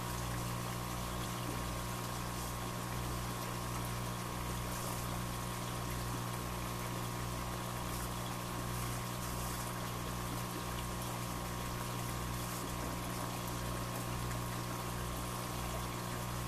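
A steady mechanical hum with an even rushing hiss over it and a slow, regular pulsing low down, like a running pump or motor.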